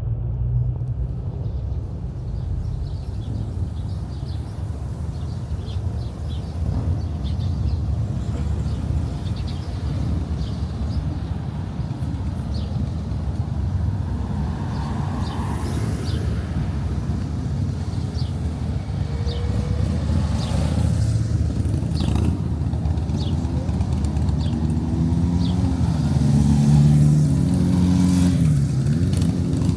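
Town street ambience with a steady low traffic rumble and light, evenly spaced footsteps. A motor vehicle's engine passes close near the end, its pitch rising and falling.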